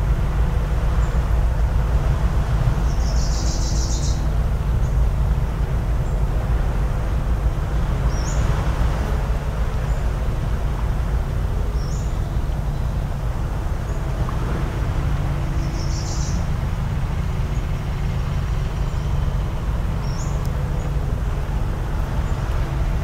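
Outdoor coastal ambience: a steady low rumble with a faint motor hum in it, over which a small bird gives short, high chirps every few seconds.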